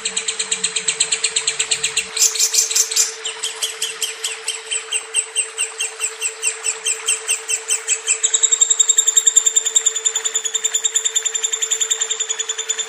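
Lovebird chattering in a long, fast run of high, sharp chirps, about ten a second, shifting in pattern a few times without a break. A steady low hum runs underneath.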